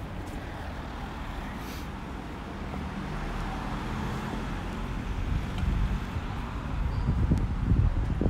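Street traffic: a car driving past, its engine and tyre noise swelling about halfway through, over a steady low road rumble.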